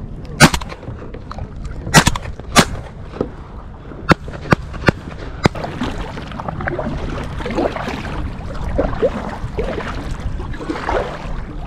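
Shotgun shots: three loud bangs in the first three seconds, then several fainter sharp cracks. From about halfway on, kayak paddle strokes splash in the water.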